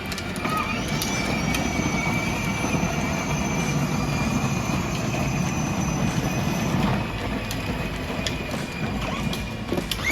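Small electric toy truck motor whining at a steady high pitch over the rumble of its wheels; the whine fades out about seven seconds in.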